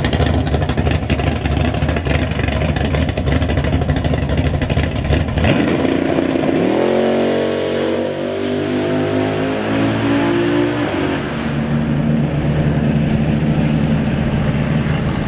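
Drag-strip car engine noise. A loud, rough engine runs hard for the first five seconds or so. Then a car engine revs up with a rising pitch and settles into a steady, even running note as the Pontiac G8 rolls toward the starting line.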